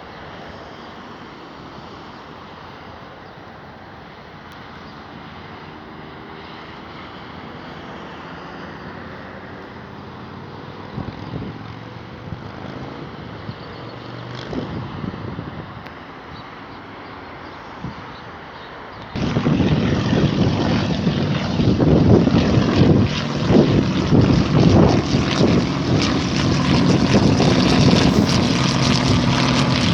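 Propeller aircraft engines: faint at first, with engine tones gliding in pitch, then abruptly much louder about two-thirds of the way in, a rough, steady engine sound with a low hum.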